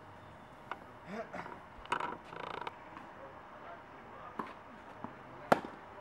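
Tennis ball struck by rackets and bouncing during a rally: a few sharp, short hits, the loudest about five and a half seconds in. Between the hits, tennis shoes creak and scuff on the court surface.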